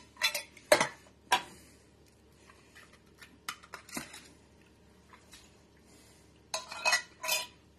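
Metal food cans knocking and clinking against a slow cooker's crock as canned mushrooms are emptied in. A few sharp knocks in the first second and a half, scattered light clicks, then a cluster of clinks near the end.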